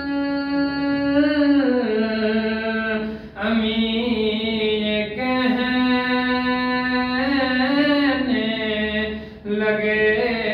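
A young man singing solo and unaccompanied, in the style of a noha recitation: long held notes that waver and bend between pitches. He takes short breaths about three seconds in and again near the end.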